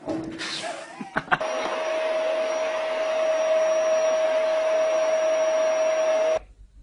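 A small electric motor running steadily: a whirring hum with a constant pitch and a faint high whine. It starts about a second and a half in, after a few knocks, and cuts off abruptly near the end.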